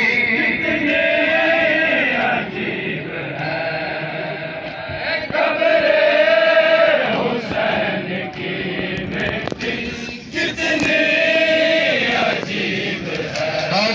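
Men chanting a noha, a Shia mourning lament, together in long drawn-out phrases.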